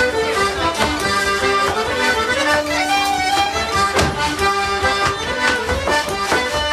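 Instrumental Irish traditional music: a fast tune played on accordion, with a fiddle, in a steady rhythm.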